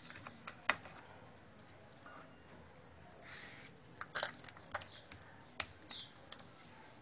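Oiled hands tapping and slapping msemen dough flat on a granite countertop: a scattering of sharp taps, the loudest about a second in and a cluster around four to five seconds. A brief swish comes about three seconds in, and faint short falling chirps sound now and then in the background.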